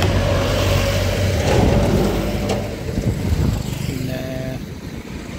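Passenger express train rolling slowly past at low speed: a steady low rumble with a hum, easing off toward the end.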